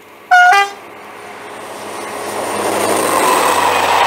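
Locomotive two-tone horn giving a short blast, a higher note then a lower one. The sound of the passenger train then builds steadily as it approaches and runs past with its coaches.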